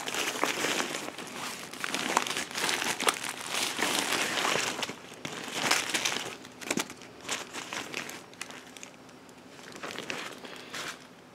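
Plastic zip-top food bags and packaging crinkling and rustling as they are handled and laid out, busy for about the first seven seconds, then quieter and sparser.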